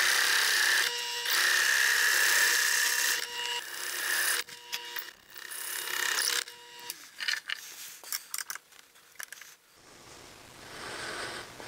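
A twist drill bit boring through a spinning wooden pen blank at about 500 RPM. The cutting noise comes in three pushes with short breaks over the first four seconds, over a steady motor whine that stops about seven seconds in, followed by a few light clicks.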